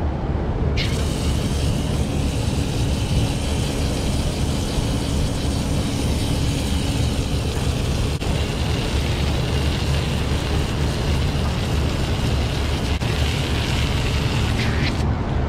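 Water spraying from a hose onto a clogged aluminium condenser coil to wash the dirt out: a steady hiss that starts about a second in and stops near the end, over a steady low machinery hum.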